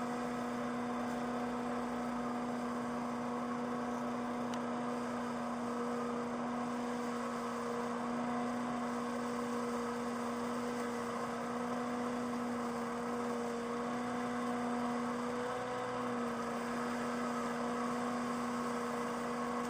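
Leaf vacuum running steadily, a constant-pitched motor hum that wavers slightly, with a brief dip in pitch about three-quarters of the way through.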